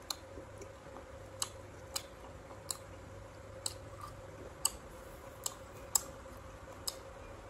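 Crisp crunching of firm raw sour fruit being chewed with chilli salt: about nine sharp, irregularly spaced crunches.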